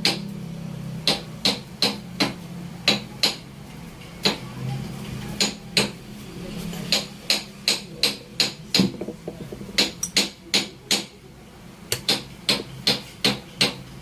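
Hammer tapping, many sharp strikes in quick runs of two to five at about two or three a second, with brief pauses between runs, during work on a power window motor.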